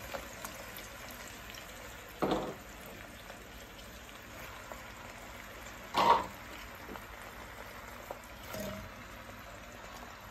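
Chopped vegetables tipped into an enamel pot over a faint, steady sizzle of oil, with three short rattling drops about two, six and eight and a half seconds in, the middle one the loudest.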